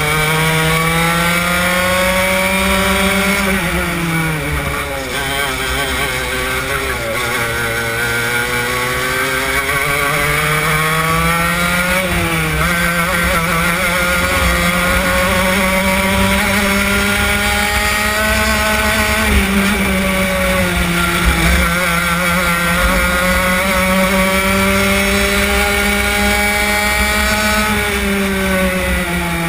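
Racing kart engine heard from on board, at high revs. Its pitch climbs steadily along the straights and drops quickly under braking for the corners, about three times.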